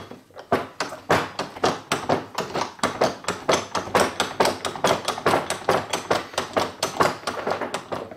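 Restored bottle jack worked by hand with its handle: a rapid run of sharp metal clicks, about four or five a second, stopping just before the end.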